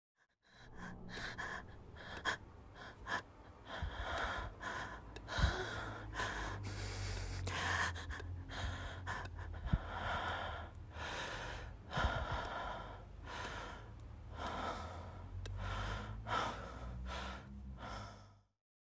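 A person breathing hard in ragged breaths and gasps, about one a second, over a steady low rumble.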